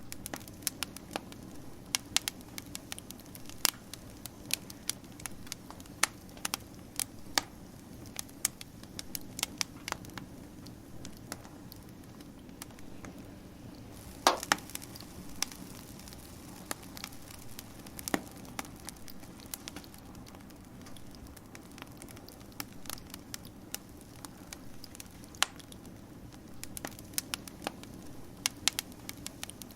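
Wood fire crackling, with irregular sharp pops over a steady low rush of burning. The loudest pop comes about halfway through.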